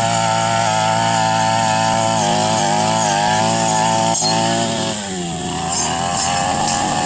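Brush cutter's small engine running at high revs under cutting load, with a short sharp knock about four seconds in, then the revs falling away about five seconds in.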